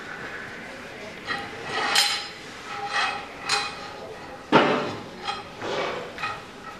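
Metal knocks and clanks from the steel bed and clamping gear of a band sawmill as a log is positioned on it: a series of separate sharp strikes with a short ringing, the loudest about four and a half seconds in.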